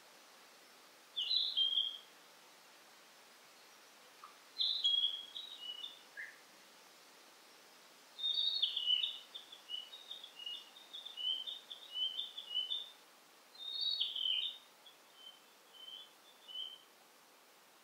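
Songbird singing high, short warbled phrases with pauses between them, and a longer run of phrases in the middle, over a faint steady forest hiss.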